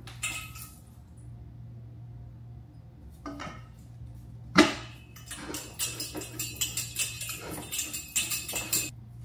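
Hard metal parts clinking and rattling as they are handled, with one sharp knock about four and a half seconds in and a quick run of clinks over the last few seconds. A steady low hum sits underneath.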